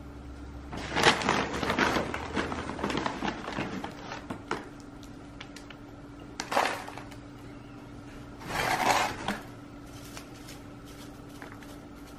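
Hands working chunky orchid potting mix of bark and perlite into a terracotta pot around a Cattleya: rustling and scraping with small clicks of bark chips, in three bursts, the longest in the first few seconds. A faint steady hum runs underneath.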